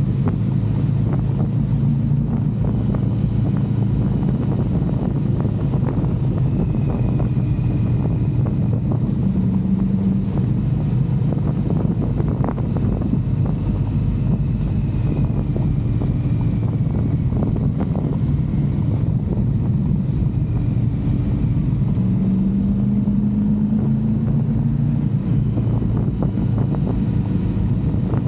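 Motorcycle engine running steadily on the move, its note climbing briefly a few times, with wind rushing over the microphone.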